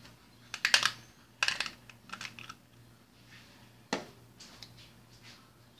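Scattered light clicks and taps of small plastic items being handled: a quick cluster of clicks near the start, a few more around two seconds in, and one sharper click about four seconds in.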